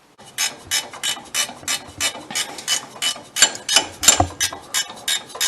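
Ratchet wrench clicking in a steady run, about four clicks a second.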